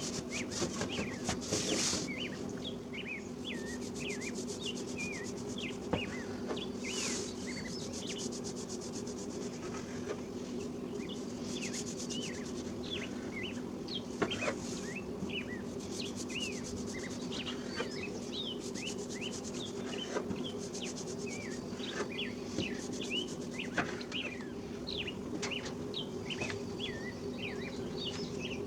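Soft rubbing of hands rolling up cinnamon roll dough on a work surface. Many small birds chirp throughout, over a low steady hum.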